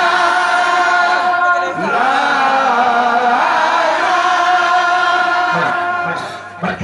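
Voices chanting a Sufi zikr together in long, held, melodic lines. The chant fades away near the end.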